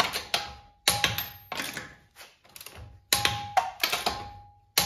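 Click-type torque wrench clicking as the wheel's lug nuts reach their set torque of 83 foot-pounds: several sharp metallic clicks, a few of them followed by a short ringing tone.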